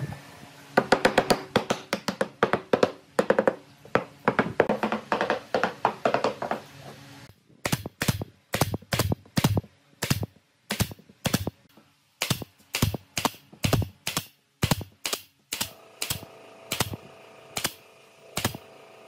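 Rapid series of sharp taps and knocks on wood, as in hammer or mallet work on pallet boards. The blows come thick and overlapping for the first seven seconds or so, then fall into evenly spaced strikes, about two or three a second.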